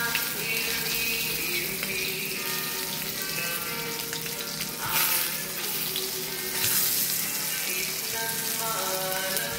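Hot dogs sizzling in a frying pan, a steady hiss with louder flares about five and seven seconds in as the sausages are pushed about with a plastic spatula.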